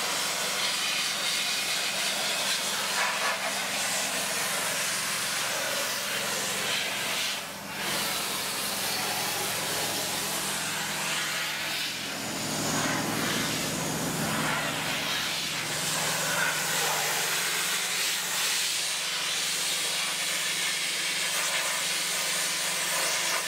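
Dustless (wet abrasive) sandblaster nozzle blasting rust off a steel truck frame: a steady, loud hiss of air, water and abrasive, easing briefly about seven seconds in.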